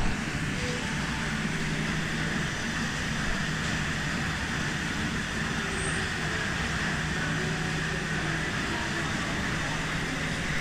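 Apple sorting line running, with Prince apples floating through its water flume: a steady mechanical drone with a constant low hum.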